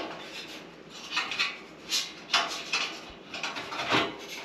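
Steel legs and frame of a two-burner gas stove clanking and scraping as they are handled and fitted together: a string of short metal knocks and rattles, the sharpest about two and a half and four seconds in.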